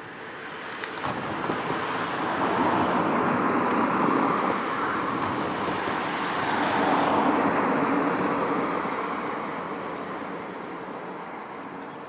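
Road traffic passing: the noise of a passing vehicle swells from about a second in, stays loud through the middle with two peaks, then fades away.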